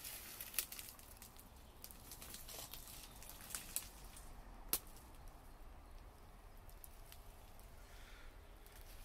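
Faint scattered crackling and snapping of dry leaves and twigs underfoot, with a few sharper snaps near the middle, over a low steady rumble.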